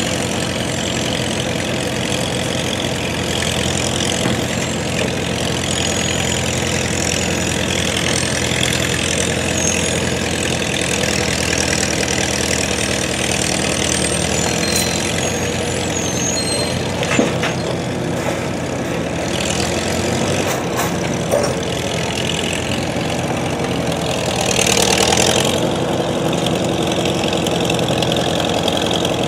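Vintage Farmall tractor engine running steadily at low speed as the tractor comes down off a trailer and drives across the pavement, a little louder for a moment near the end as it passes close.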